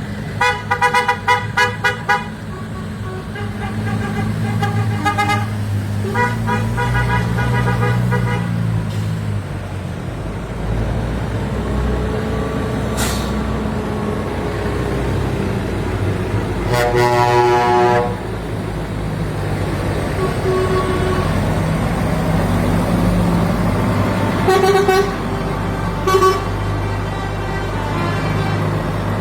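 Tractor engines rumbling steadily past while horns toot repeatedly: quick beeping bursts near the start, a longer horn blast just past the middle, and a couple of short toots near the end.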